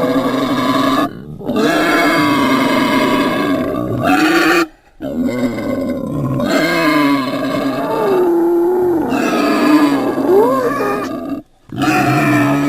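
Pig squealing in long, loud, drawn-out calls that waver in pitch, broken three times by short pauses for breath.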